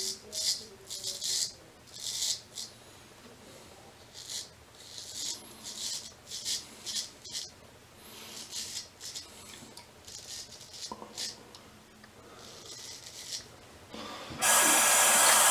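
Straight razor scraping through lathered stubble on the neck in short strokes, several a second in irregular runs. Near the end a much louder steady rushing noise starts.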